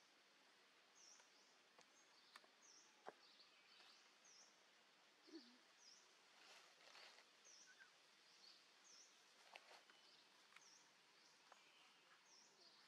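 Very faint forest ambience, near silence, with a bird repeating a short high chirp about once a second and a few soft clicks.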